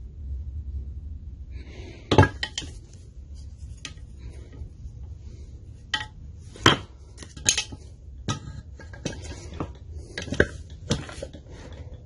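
Hammer blows on a wooden block, driving a stuck piston and connecting rod out of a Briggs & Stratton 5.50 lawnmower engine block: about a dozen irregular sharp knocks and metal clinks, the loudest about two seconds in.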